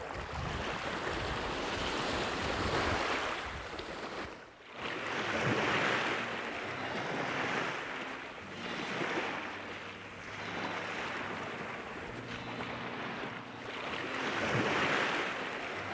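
Small waves breaking and washing up a sandy beach, the surf swelling and fading every few seconds, with some wind.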